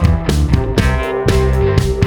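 Background music: guitar-led rock track with a steady beat.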